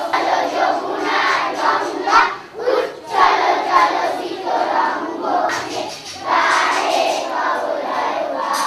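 A large group of schoolchildren singing together in unison, phrase by phrase, with short breaks between lines.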